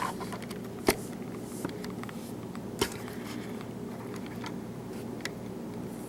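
Small metal lock parts, pins and springs from a disassembled padlock, clicking as they are handled and set down in a tray: two sharp clicks, about a second and about three seconds in, and a few faint ticks, over a steady low hum.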